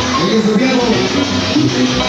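Salsa music playing loud.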